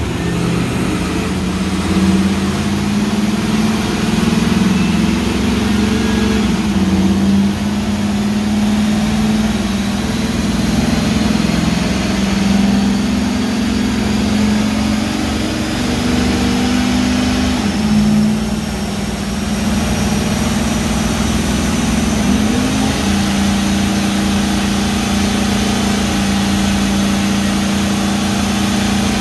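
Pickup truck engine running steadily at raised speed on a chassis dynamometer, its pitch holding with small dips and swells rather than climbing as in a full pull. A faint high whine slowly rises in pitch through the second half.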